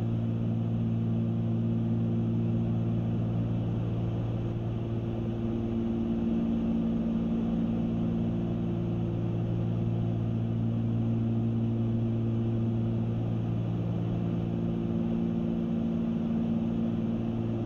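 Twin-engine Cessna 310Q in level cruise, heard from inside the cockpit: both piston engines and propellers droning in a steady, even low hum.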